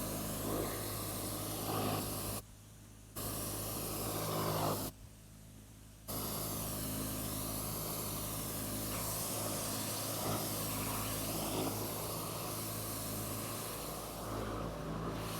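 Pressure washer spraying water in a steady hiss, over the low, even hum of the machine running. The spray cuts out twice for about a second, a couple of seconds in and again about five seconds in.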